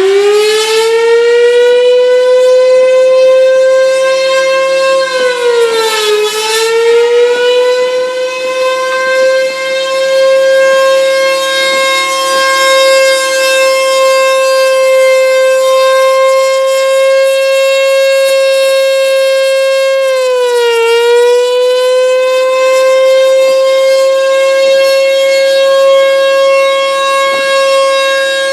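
Federal Sign & Signal Thunderbolt 1000A warning siren sounding its steady alert tone. It finishes winding up to full pitch in the first second, then holds one pitch, sagging briefly and recovering about five seconds in and again about twenty seconds in. It is a manually run siren with really rough bearings, giving a growl that comes close to a wail.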